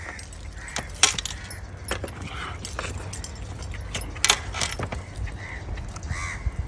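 Metal bracelets, rings and neck chains jingling and clinking as hands tear at cooked goat meat on a metal platter, with a few sharp clicks, the loudest about a second in and around four seconds in.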